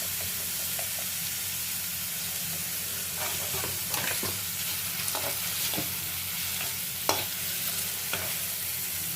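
Mushrooms and green peas sizzling steadily in hot oil in a pan as they are sautéed, with a spatula scraping and clicking against the pan now and then, including one sharper click about two-thirds of the way through.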